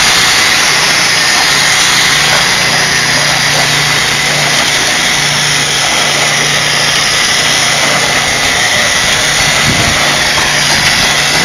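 Homemade spin screed running: an electric drill drives a 7-inch angle grinder's gear head that spins a stainless steel tube over wet concrete, giving a steady motor whine with a low hum underneath.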